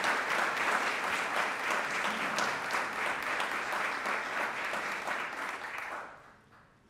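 Audience applauding, fading away about six seconds in.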